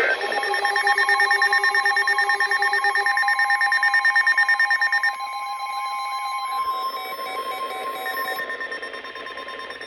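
Emergency alert attention tones: several steady electronic tones sounding at once, pulsing rapidly for about the first five seconds. They drop out one after another until a single tone is left, which stops near the end. The tones herald a new alert.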